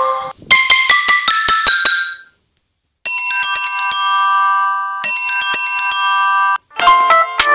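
Samsung Galaxy S7 ringtones played back one after another: a quick run of bright, mallet-like notes that dies away about two seconds in, a short silence, then a chiming tone with held high notes, and the next ringtone starting near the end.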